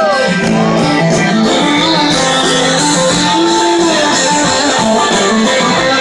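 Live rock band playing, with strummed guitars to the fore and no vocal line.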